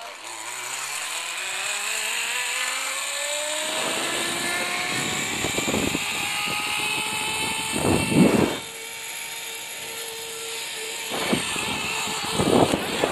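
Zip line trolley pulleys running along the steel cable with a whirring whine that rises in pitch over the first few seconds as the rider picks up speed, then holds steady. Two louder rushing bursts come about eight seconds in and near the end.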